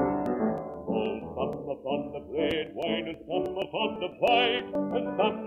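Old 78 rpm shellac record of a baritone-range male voice singing a ballad with instrumental accompaniment: sustained accompaniment notes, then the voice comes in about a second in, singing phrases with a wide vibrato. The music is dull with little treble, and a few faint surface clicks come through the noise-reduction filter.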